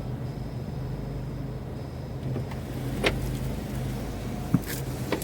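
Car engine idling with the heater and defroster fan running, heard from inside the cabin as a steady low hum. Two short clicks come about three and four and a half seconds in.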